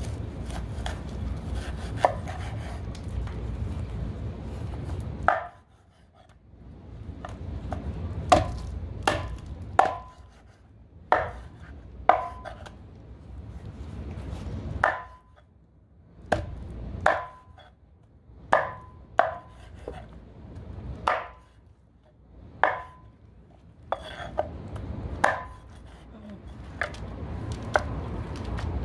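A meat cleaver chopping raw chicken into pieces on a wooden cutting board: about twenty sharp, irregular blows, each with a brief ring from the blade. A low rumble sits underneath at the start and near the end.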